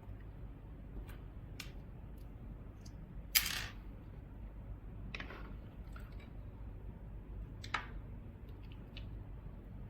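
Small tools and device parts being handled during a disassembly: scattered light clicks and scrapes, with one sharp snap a third of the way in and two softer ones later, over a low steady hum.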